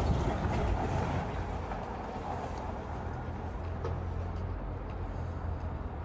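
Steady low machine hum under a soft hiss, easing slightly in level over the first second or two.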